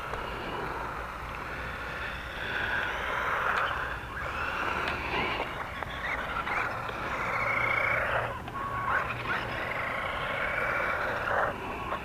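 Electric drive motor of a GP Toys Rider 5 four-wheel-drive 1:16 RC car whining as it drives, the pitch rising and falling with the throttle several times.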